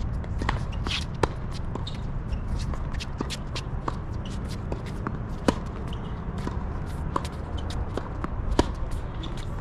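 Tennis ball sharply struck and bouncing on a hard court, with players' shoes shuffling, over a steady low wind rumble on the microphone.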